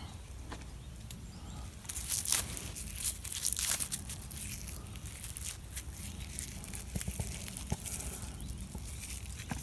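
Dry, papery birch-bark flakes and clothing rustling and crinkling as the bark is stuffed into a jacket pocket. The crackling is irregular and loudest from about two to four seconds in.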